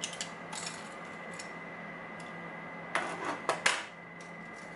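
Light metallic clicks and clinks from a brass challenge lock being handled, with a quick cluster of rattling clinks about three seconds in, over a steady faint hum.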